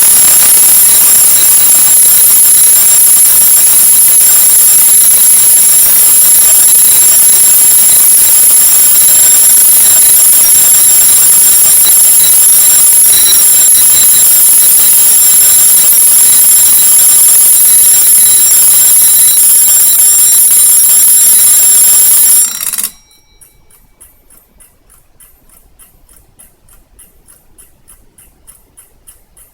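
Seiko Corona wind-up mechanical alarm clock's bell ringing loudly and continuously, then cutting off suddenly about 23 seconds in. After it stops, the clock's movement is left ticking quietly and evenly.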